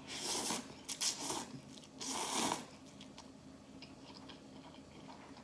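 Close-miked eating of instant ramen: three noisy slurps of noodles in the first three seconds, then quieter chewing with small wet clicks.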